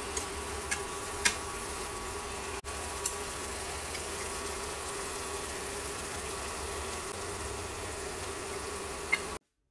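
Seafood and vegetables sizzling steadily in a hot nonstick frying pan during a stir-fry, over a steady buzzing hum, with a few sharp clicks. It cuts off abruptly just before the end.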